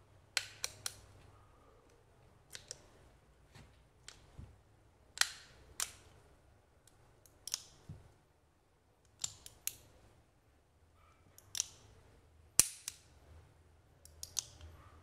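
Rossi .38 revolver being dry-fired as a function test after reassembly: sharp metallic clicks of the hammer cocking and snapping down on an empty chamber, in small groups of one to three clicks every second or two.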